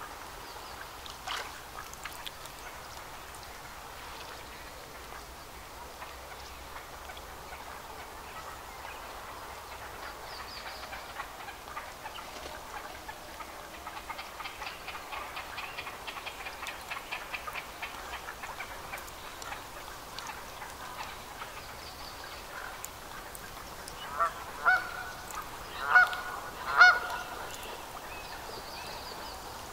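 Four loud, harsh honking calls of a great crested grebe near the end, in two pairs over about three seconds. Earlier there is only a faint background of reedbed ambience, with a fast, faint ticking chatter for several seconds in the middle.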